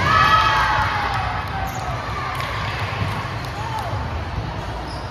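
Indoor volleyball play: a player's drawn-out call that falls in pitch right after a ball contact, a shorter call a few seconds later, and ball thuds over the steady din of the gym.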